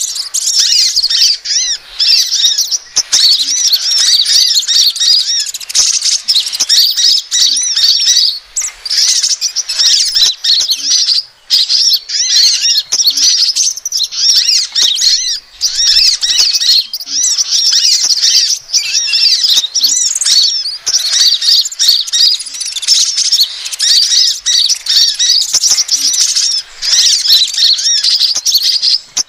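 Bird-lure recording of sunbirds calling, the 'kolibri ninja' and 'sepah raja' sounds used to attract small birds. It is a dense, nearly unbroken stream of rapid, high-pitched chirps and twitters, with a few short breaks.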